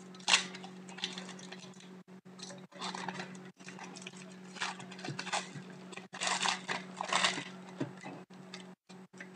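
Foil wrapper of a Panini hockey card pack crinkling and tearing in irregular bursts as it is opened by hand, over a steady low hum.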